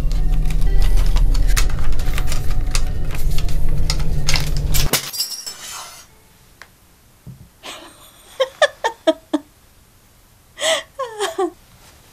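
A loud, harsh din of crashing strokes over a deep hum cuts off suddenly about five seconds in. After a short hush, a woman sobs in two clusters of short, gasping, falling cries.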